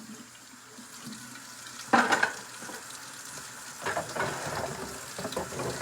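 Food frying in a pan, a steady sizzle, with a brief louder noise about two seconds in and another near four seconds.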